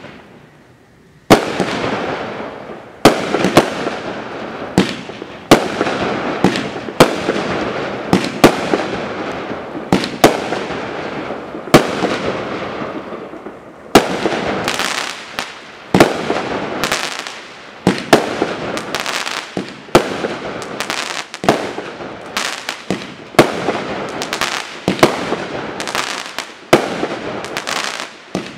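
Dominator DB5801 Extreme Caution, a 63-shot 500-gram consumer aerial fireworks cake, firing its shots. After about a second of quiet come sharp bangs every one to two seconds, each trailed by a fading hiss of the burst, and they come quicker toward the end.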